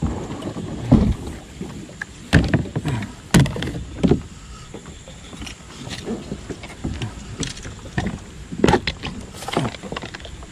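Water splashing and knocking against a kayak in fast-flowing river rapids: irregular sharp splashes and knocks over a steady rush of water.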